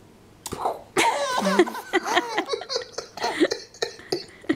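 Baby laughing in a run of high-pitched bursts starting about a second in, set off by her pacifier being pulled out of her mouth.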